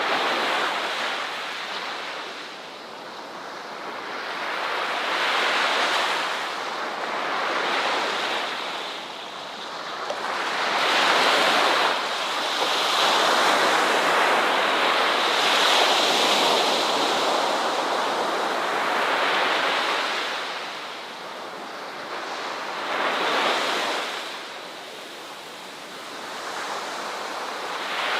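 Ocean waves breaking on a beach, each surge swelling and washing back with a hiss every few seconds, with some wind.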